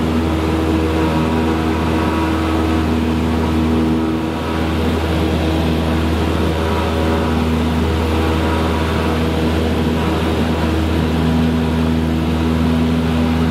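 Single piston engine and propeller of a small airplane running at climb power shortly after takeoff, heard from inside the cockpit as a steady, loud drone. Its even tone turns rougher and less steady for several seconds in the middle, then settles again.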